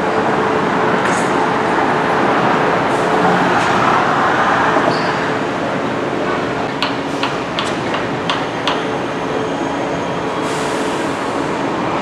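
Steady din of a construction site: machinery and engines running. A quick run of sharp knocks comes about seven to nine seconds in.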